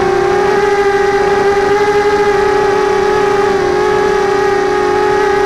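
Brushless motors and propellers of an x210 FPV quadcopter in flight, heard from its onboard camera: a loud, steady high whine with overtones, its pitch holding nearly level.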